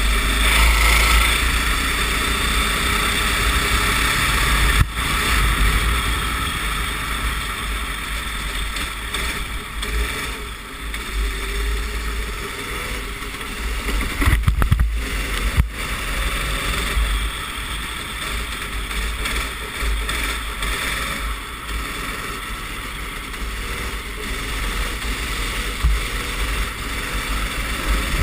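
Racing kart engine heard from onboard, rising and falling with the throttle under a heavy hiss of wind and spray on a wet track, with a few sharp knocks about five seconds in and again in the middle.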